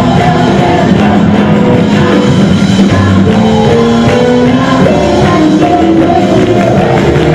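Live gospel praise-break music: several singers over a full band of guitars, keyboard and drum kit, playing loud and steady with a driving beat.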